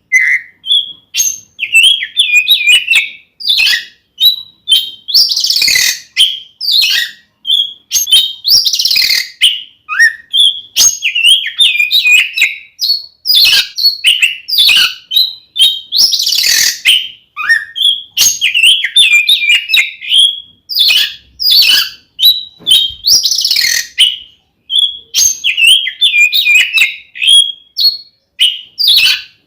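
Oriental magpie-robin (kacer) singing loudly and without pause in its fighting song: quick, varied whistled phrases broken every few seconds by harsh rasping notes.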